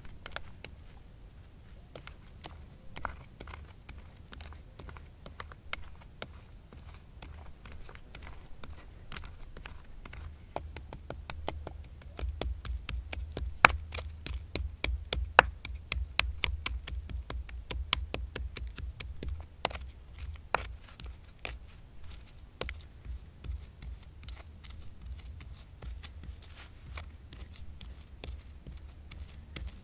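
Hand-held stone pestle pounding and grinding acorns in a granite bedrock mortar hole: a quick run of stone-on-stone knocks with crunching and scraping of the acorn meat, the strikes heavier and more frequent through the middle.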